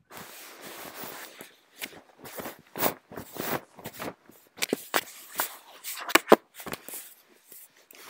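Handling noise on a video-call computer's microphone: irregular knocks, taps and rustling as the device and its camera are moved about by hand, the sharpest knock about six seconds in.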